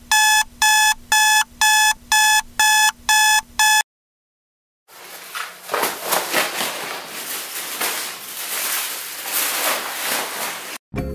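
Electronic alarm clock beeping, about two beeps a second, which stops after about four seconds. After a short silence comes a long stretch of rustling noise with quick clicks.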